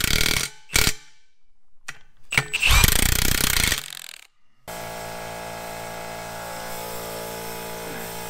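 Cordless impact wrench running down the nuts that clamp a two-piece aluminium wheel together, in short bursts of hammering. About two thirds of the way in the sound cuts to a steady hiss and hum of air being fed into the tyre through an air chuck on the valve stem.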